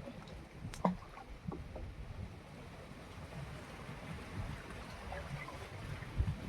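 Small fishing boat on the water, with wind rumbling on the microphone, a sharp knock just under a second in and a few lighter clicks.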